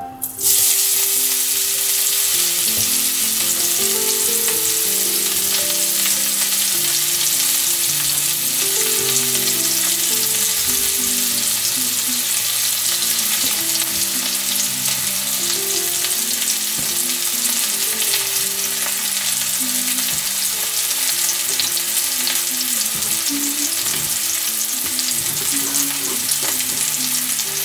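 Sliced red onions sizzling in hot oil in a frying pan: the sizzle starts suddenly as the onions go in, then carries on steadily.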